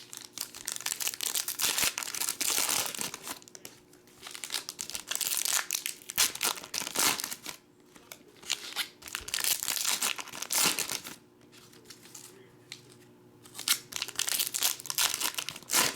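Plastic wrapping of trading card packs and boxes crinkling and tearing as they are opened, in repeated bursts with short pauses between.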